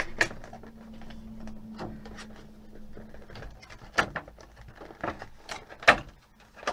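Clear plastic doll packaging being handled and pulled open: scattered plastic clicks and rustles, with sharp knocks about four and six seconds in. A faint steady hum runs under the first three seconds.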